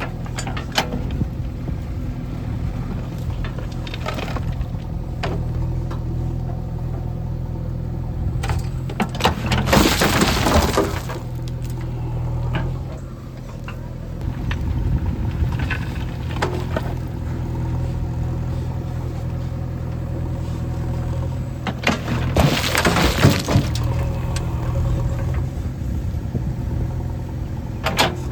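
Diesel engine of a JCB 3DX backhoe loader running steadily. Two loud crashing, rushing bursts, each about one to two seconds long, come about ten seconds in and again about twenty-three seconds in: soil dropping from the loader bucket into a tractor trolley.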